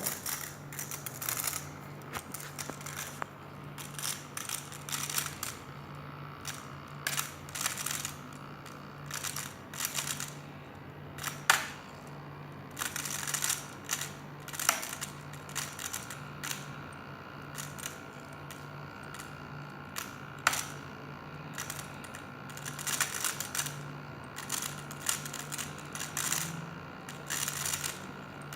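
MacBook Pro making irregular grinding, crackling bursts over a steady low hum, with a few sharper clicks among them.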